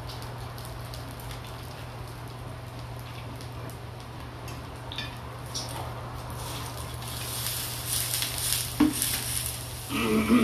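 Meat skewers sizzling on a grill pan over a steady low hum, the sizzle growing louder about seven seconds in, with clicks of utensils against the pan as the skewers are turned.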